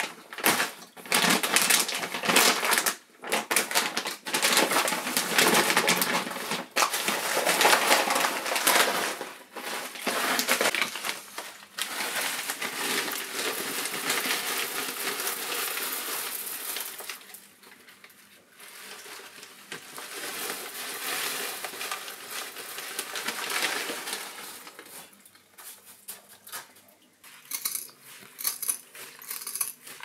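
Plastic bags of soil being handled and crinkled as they are cut open, then granular substrate rattling as it is poured out of a bag onto rocks for several seconds.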